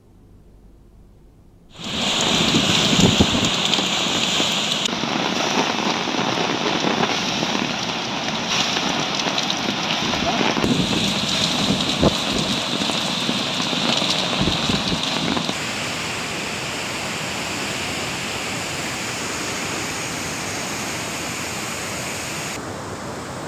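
Floodwater rushing through opened dam spillway gates, released downstream: a loud, steady rush that starts about two seconds in and changes tone abruptly a few times.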